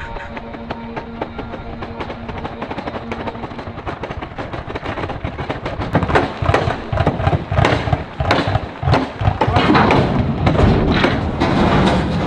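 Background music: held notes at first, then from about halfway a loud run of heavy drum hits.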